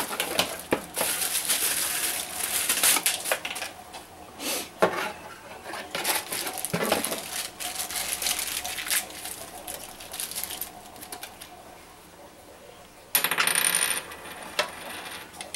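Unpacking noises: plastic wrapping crinkling and small plastic light-fitting parts clicking and knocking against a hard countertop, busiest in the first few seconds. A louder burst of rustling lasting under a second comes near the end.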